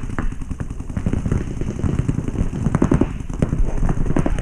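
Paintball markers firing: a dense, irregular run of sharp pops, several a second, over a steady low rumble.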